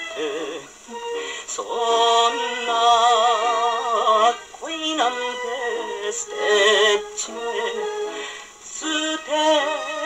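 A Japanese popular song playing from a 78 rpm shellac record on a portable acoustic phonograph with a steel needle: a melody with strong vibrato, thin and without bass, over steady surface hiss.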